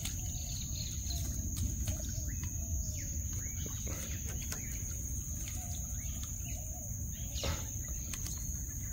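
Birds chirping and calling over a steady high-pitched insect drone, with a few light splashes and drips as a wet gillnet is pulled hand over hand out of the water into a wooden canoe.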